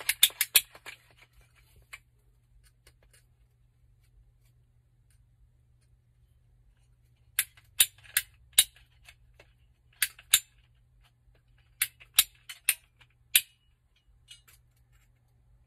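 Sharp snapping clicks of a ratcheting PVC pipe cutter being squeezed through plastic pipe. A few come at the start, then after a long pause about a dozen more follow in short runs of two to four.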